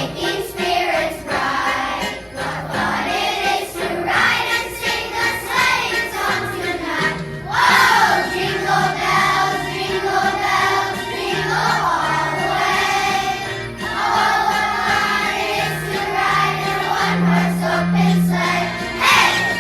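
Choir singing a holiday song with instrumental accompaniment, over a line of held low bass notes, with a loud accent about seven and a half seconds in.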